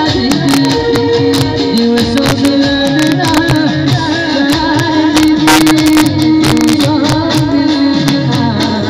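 Live Gujarati garba music played loud through a PA system: a keyboard holding sustained tones, hand drums beating a steady rhythm, and a male singer's voice. A short hissing burst, like a cymbal, comes a little past halfway.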